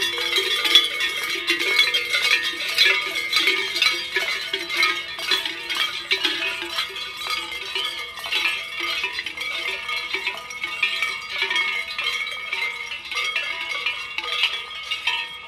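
Many cowbells on Krampus costumes clanging irregularly as the figures walk, fading somewhat toward the end.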